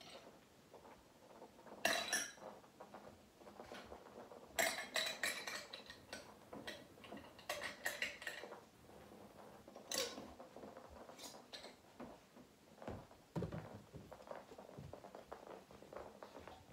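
Kibble rattling and clattering inside a hard plastic treat ball (Omega Paw Tricky Treat Ball) as a dog noses and rolls it across carpet. It comes in several separate bursts a few seconds apart, with a duller knock about three quarters of the way through.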